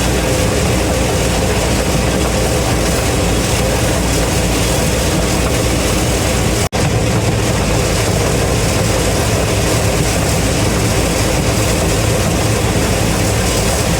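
Heavy diesel farm machinery running steadily and loud, with a momentary break in the sound about seven seconds in.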